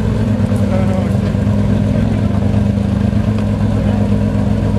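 Tuthill-prepared Porsche 997 GT3 R-GT rally car's 3.8-litre flat-six running steadily at an even pitch, its loud exhaust note holding constant.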